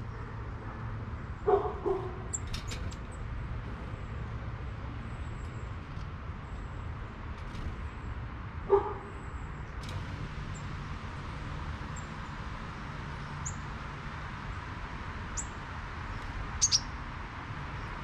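A dog barks twice in quick succession, then once more several seconds later, over a steady low outdoor hum; a few short, high bird chirps come in between, two close together near the end.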